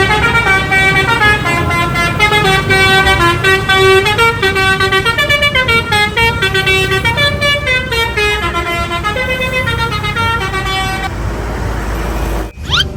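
Bus telolet horn, a set of musical air horns, playing a quick tune of several notes at once over a low engine rumble. The tune stops about eleven seconds in, leaving the engine noise, and a brief rising sweep sounds near the end.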